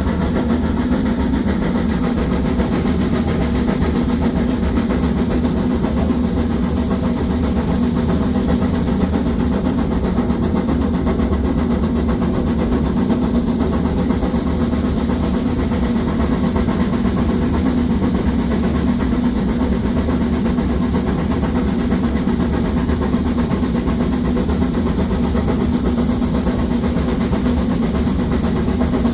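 Harz narrow-gauge steam locomotive 99 7240-7, a metre-gauge 2-10-2 tank engine, working hard up a 1:25 grade with seven full coaches, its exhaust beats and running gear sounding steadily without let-up.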